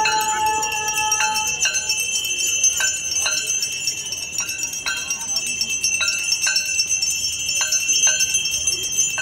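Brass temple bells ringing through the Ganga Aarti: a steady high ringing with irregular struck clangs, one or two a second, each dying away. A held note fades out about a second in.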